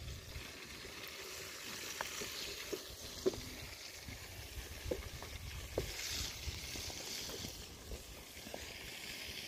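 Fish frying in hot oil in a pan over a wood fire: a steady sizzle with scattered small pops and crackles.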